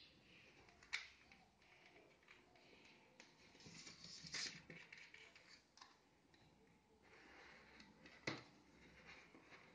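Faint rustling of gloved hands handling plastic drip-irrigation tubing and connectors, with a sharp click about a second in, a louder rustle around four seconds and another click near eight seconds.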